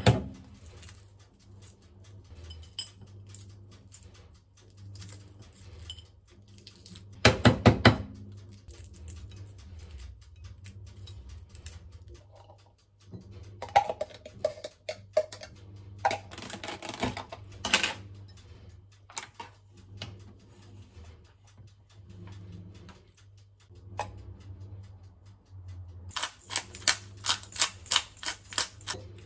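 Boiled eggs rapped on a plate to crack their shells: two bursts of sharp taps, at the start and about seven seconds in. Light clinks and scrapes of a spoon and a plastic container as canned corn goes into a ceramic bowl, then a pepper grinder turned in a quick run of clicks near the end.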